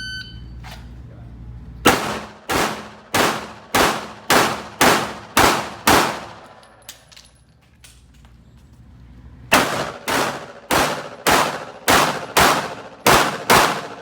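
A shot timer beeps once, then a Glock 19 9mm pistol fires two strings of eight rapid shots, just under two a second, with a pause of about three seconds between the strings.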